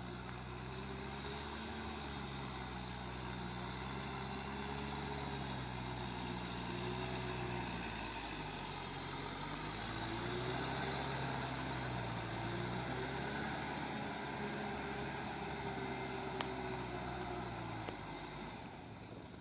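Kubota M6040SU tractor's diesel engine running under load while it works through wet paddy mud with its rear rotary tiller, the engine note sagging and picking up again several times. The sound fades near the end.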